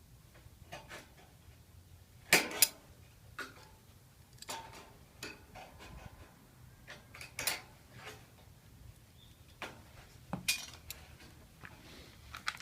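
Hand snips cutting sheet-metal ridge flashing: irregular sharp metallic snips and clinks, the loudest pair about two seconds in.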